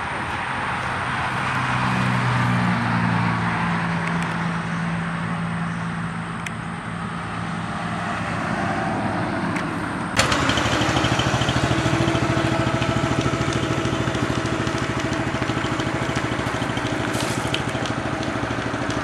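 An engine running steadily, a low drone. There is an abrupt cut about ten seconds in, after which it is louder.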